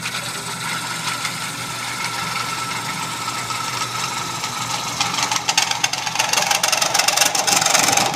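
Wood lathe running while a turning gouge cuts into a spinning burl bowl blank: a continuous scraping hiss of the cut over the steady hum of the lathe motor. The cut gets louder and harsher about five seconds in.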